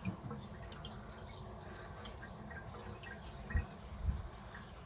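Faint scattered drips and small splashes of water in a fish tank, with two soft low thumps near the end.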